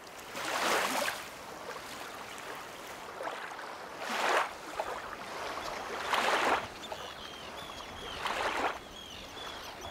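Small waves washing up on a sandy shore, each wash swelling and falling away, four times about two seconds apart. From about seven seconds in, birds give a quick run of short chirping calls over the surf.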